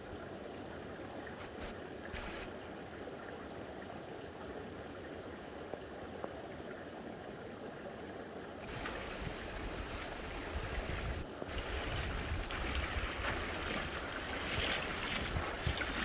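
Shallow mountain stream running steadily over rocks. About nine seconds in, the sound turns louder and fuller, with water sloshing and splashing around legs in rubber waders wading through the shallows, and a low rumble of wind on the microphone.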